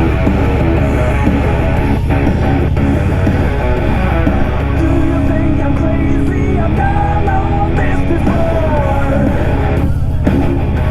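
Rock music with electric guitar playing from a Harley-Davidson Road Glide's fairing and rear audio speakers, picked up inside the rider's helmet. A steady low rumble of engine and road noise at about 30 mph runs under it.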